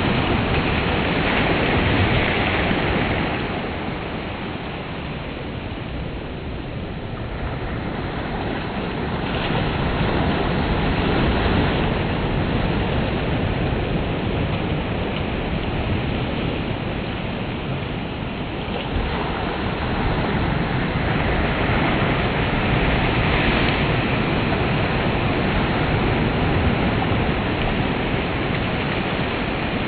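Gulf surf breaking and washing up a sandy beach: a continuous wash of water that swells and ebbs as each wave comes in.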